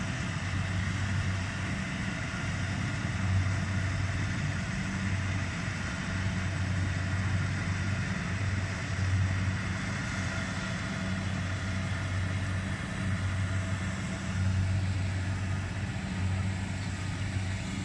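Engine and machinery of a small crawler rice combine harvester running steadily while harvesting, a low drone that swells and eases, with a steady higher whine over it.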